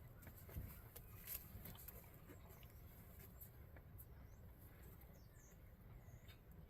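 Near silence: a faint low background rumble with a few soft clicks, and faint high bird chirps about two thirds of the way in.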